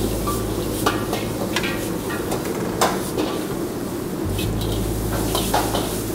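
Stir-frying in a wok: a metal ladle knocking and scraping against the wok as food sizzles, with irregular sharp clanks, the loudest about three seconds in, over a steady low hum.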